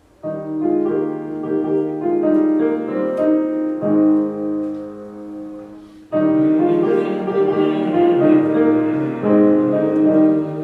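Piano playing slow, sustained chords in two phrases: the first fades out about six seconds in and a second begins at once.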